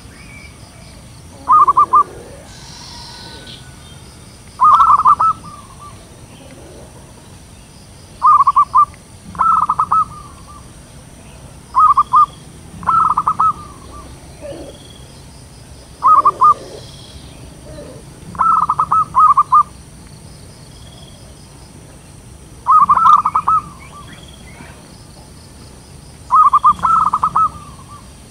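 Zebra doves cooing: short, fast staccato trills of pulsed notes, about ten phrases spaced a few seconds apart, some phrases doubled.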